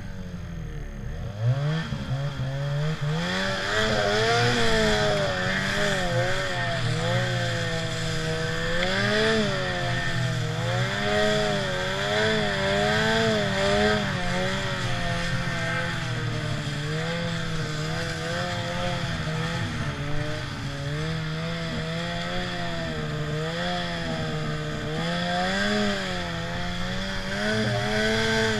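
Ski-Doo Summit snowmobile's two-stroke engine running while riding. The revs climb about a second in and then keep rising and falling as the throttle is worked.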